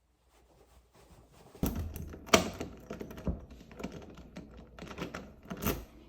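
Irregular clicks, taps and knocks, the sharpest about two and a half seconds in and another strong one near the end.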